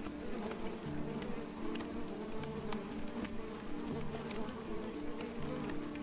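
Honeybees buzzing steadily in numbers over an opened top bar hive, with scattered light ticks.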